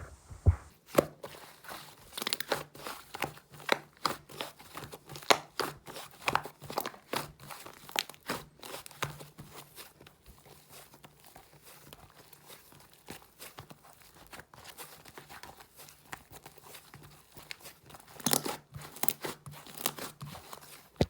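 Hands squishing and stretching a soft, fluffy clay slime, giving irregular sticky pops, snaps and crackles. The pops come thickest in the first several seconds and again near the end, over a faint steady low hum.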